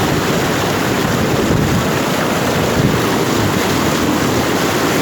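Floodwater sloshing and splashing, mixed with wind buffeting the microphone.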